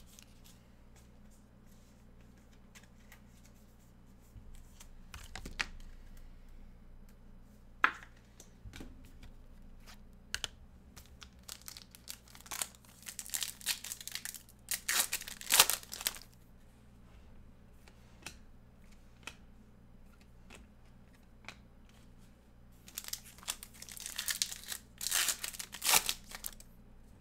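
Foil trading-card pack wrapper being torn open and crinkled: two long stretches of rustling, one around the middle and one near the end. Scattered light clicks and taps come before them.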